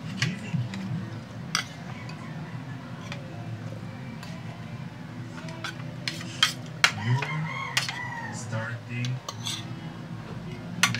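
Spoons and forks clinking and scraping against plates during a meal, in sharp scattered clicks, the loudest a few clustered about six to eight seconds in.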